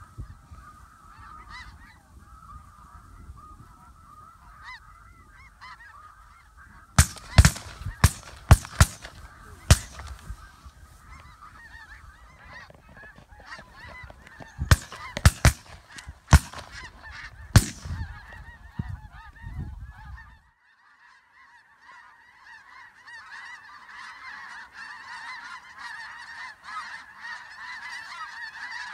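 A large flock of snow geese calling overhead in a continuous high-pitched chatter. Two volleys of shotgun fire cut through it: about six shots starting about seven seconds in, and about five more around fifteen seconds in.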